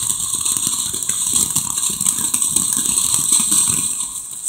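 Consumer ground firework fountain spraying sparks, with a steady hiss and dense crackling that dips briefly near the end.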